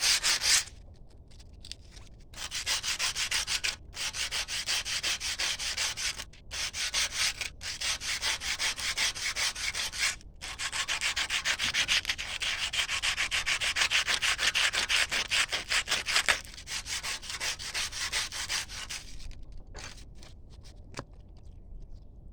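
Rapid back-and-forth rasping strokes of hand abrasion on a metal spearhead, rubbed in several runs with short pauses, thinning out and stopping near the end.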